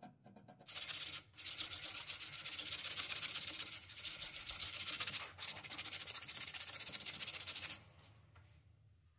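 Homemade bow sander's sandpaper strip rubbed back and forth over a wooden workpiece, sanding in a few long strokes with short breaks between them and stopping about a second before the end.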